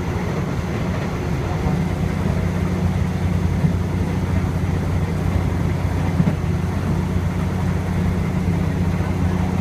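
Steady low rumble and hum of a passenger train running along the track, heard from aboard.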